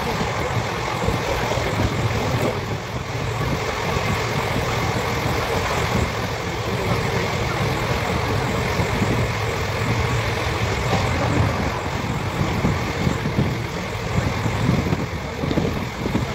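Passenger train running along the track: a steady rumble and rush of wheels on rail and moving air, heard from the open doorway of a coach.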